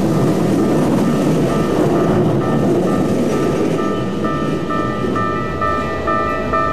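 A Keikyu train passing over a level crossing: its running rumble fades away about three to four seconds in. Under it the crossing alarm dings about twice a second, standing out clearly once the train noise has faded.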